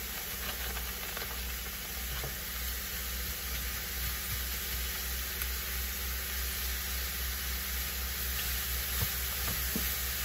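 Riced cauliflower, mushrooms, onion and garlic sizzling steadily in hot avocado oil in a stainless steel pot, stirred with a plastic spoon that now and then gives a light tap against the pot.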